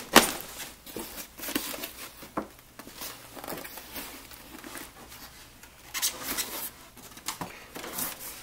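A large cardboard toy box being handled and turned over: scattered knocks and scrapes of cardboard with rustling. The loudest knock comes just after the start, with longer rustling about six seconds in and again near the end.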